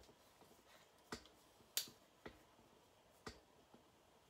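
Curling iron being handled while hair is wound on it: a handful of sharp, irregularly spaced clicks, likely its spring clamp and handle, the loudest a little under two seconds in.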